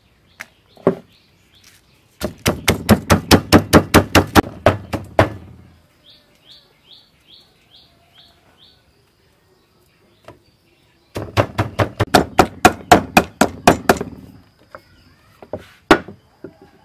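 Wooden pestle pounding garlic and red chilies in a wooden mortar, in two quick runs of rapid strikes at about six a second, crushing them into chili sauce. Between the runs a bird chirps a string of about seven short high notes, and a single knock comes near the end.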